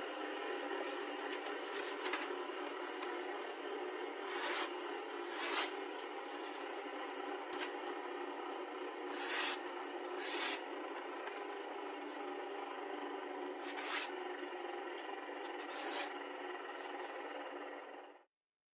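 A sharpened knife blade slicing through a sheet of paper: several short rasping swishes over a steady machine hum. The hum cuts off abruptly near the end.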